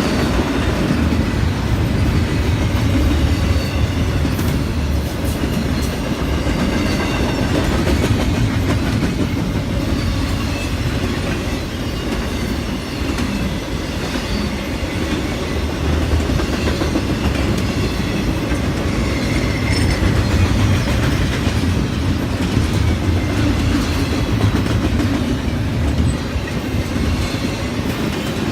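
Intermodal freight train's cars rolling steadily past on a curve: a continuous rumble of wheels on rail with clickety-clack and faint flange squeal.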